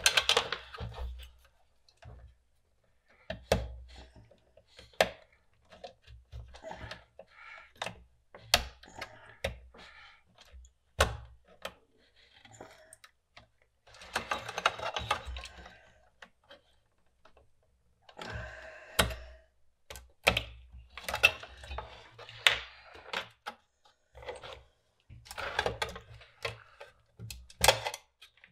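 Tools and small parts being handled on a workbench during desoldering work: scattered sharp clicks, taps and knocks with bits of scraping and rustling between them.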